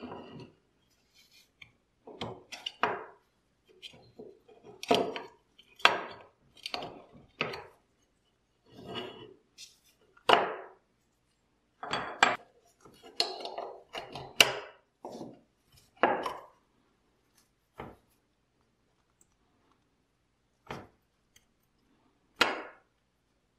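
Small metal parts of an antique aluminium syringe clinking and knocking as they are taken apart by hand and set down on a wooden workbench: many short, separate clinks and taps with silent gaps between.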